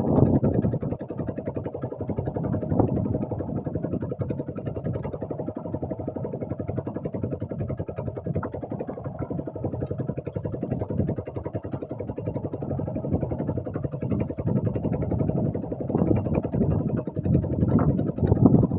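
Small fishing boat's engine running steadily, a continuous low-pitched drone with a fine, even pulse.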